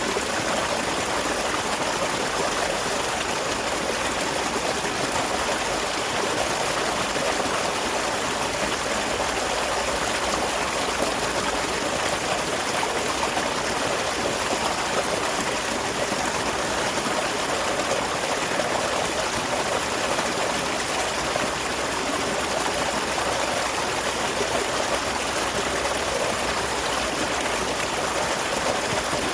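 Small waterfall running steadily: an even, unbroken rush and splash of falling water.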